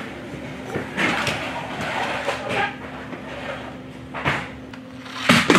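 Plastic toy train track and small die-cast toy engines knocking and rattling as a toddler handles them, with a louder clatter near the end.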